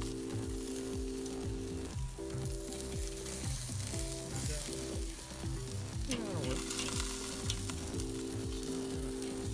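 Skin-on chicken breasts sizzling on the hot grate of a charcoal kettle grill, searing over direct heat as tongs shift them. Background music with a steady beat plays throughout.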